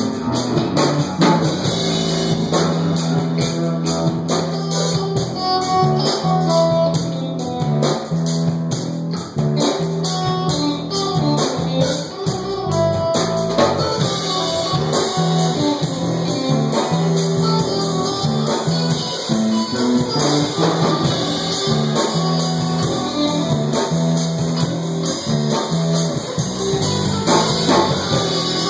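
Music: a guitar-led song with a drum kit.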